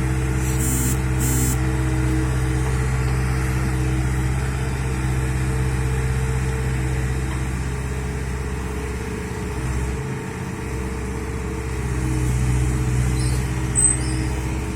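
Bulldozer diesel engine running steadily, its note dipping briefly about two-thirds of the way through. Two short high-pitched sounds come about a second in, and a brief sharp sound near the end.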